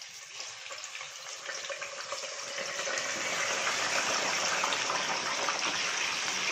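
Marinated chicken tikka pieces going into hot oil in a wok, the oil sizzling and frying. The sizzle builds over the first three seconds as more pieces go in, then holds steady.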